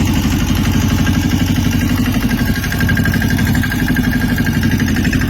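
A small engine running steadily at idle, with an even low throb.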